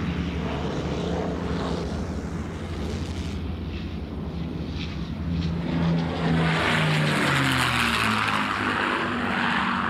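North American XP-82 Twin Mustang making a low pass, its two V-12 piston engines and propellers giving a steady drone. The drone grows louder about six seconds in and drops in pitch as the aircraft goes by.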